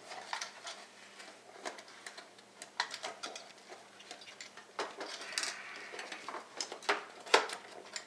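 Scattered clicks, knocks and scrapes of a stock AMD CPU cooler being wiggled back and forth on its retention bracket while its clips are worked onto the hooks on both sides. There is a brief scrape about five seconds in and the sharpest click near the end.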